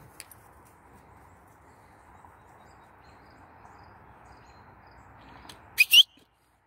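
Steady outdoor background hiss, then near the end two quick, loud, rising whistles from a person calling the dog back.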